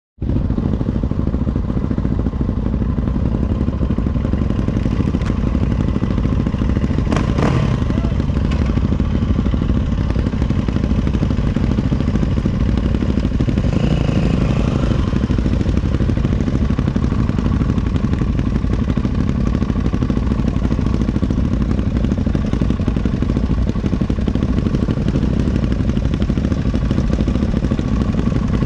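Motorcycle engine idling steadily close to the microphone, with a single sharp clack about seven seconds in.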